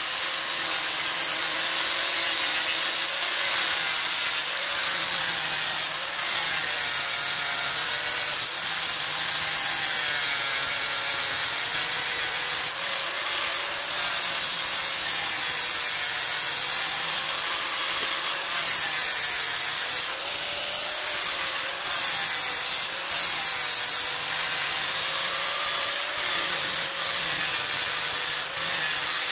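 Angle grinder grinding down a weld on steel flat bar, running continuously, its high whine wavering up and down in pitch as the disc works the metal.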